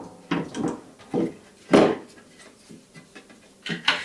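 Resin 3D printer parts being handled and fitted: a run of short knocks and scrapes, the loudest about two seconds in and another near the end.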